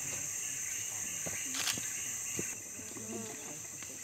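Steady high-pitched drone of a rainforest insect chorus, easing slightly a little past halfway, with faint distant voices underneath and a single sharp click near the middle.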